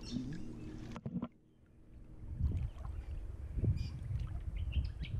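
Water sloshing and splashing as a dog and a person wade through shallow water, in irregular low surges with small clicks. The sound drops away briefly about a second in.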